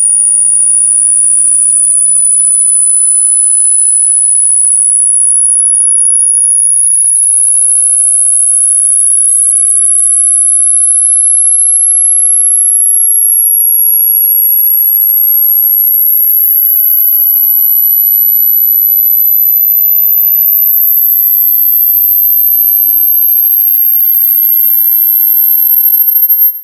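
A loud, single pure electronic sine tone, very high-pitched and piercing, gliding slowly and steadily upward in pitch. It cuts off abruptly near the end.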